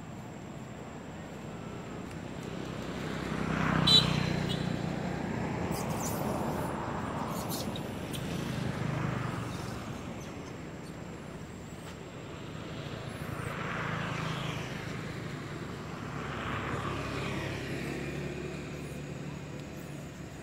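Motor vehicles passing one after another, each rising and fading away with a falling pitch, about four times. A sharp click about four seconds in is the loudest moment.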